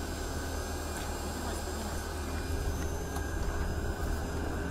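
Steady mechanical rumble and hiss of aircraft machinery running on the airfield, with faint steady high-pitched whine tones and a low fluttering rumble of wind on the microphone.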